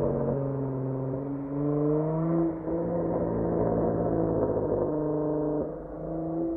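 Dodge Charger SXT's V6 exhaust through Flowmaster Outlaw mufflers, being revved. The pitch climbs for about two seconds and drops back, holds steady, then dips briefly near the end before rising again.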